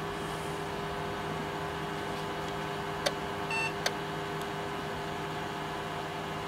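Steady fan hum from a Rohde & Schwarz CMU200 radio communication tester booting up after power-on, with other bench equipment running. A click about three seconds in, then a short beep, then another click just before four seconds.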